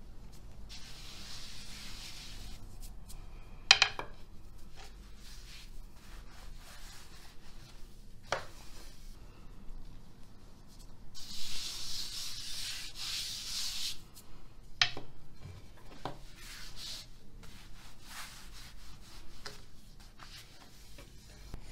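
Hands rubbing and spreading flour over a thin sheet of dough on a marble counter, a soft dry hiss that swells twice, about a second in and again around the middle. A few sharp knocks on the counter break in, the loudest about four seconds in.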